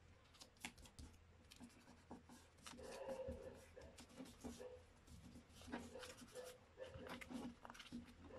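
A sheet of paper being folded by hand: soft rustling and sliding as fingers smooth the paper, with short crisp crinkles and taps as creases are pressed flat. It comes in irregular spurts, busiest about three seconds in and again near the end.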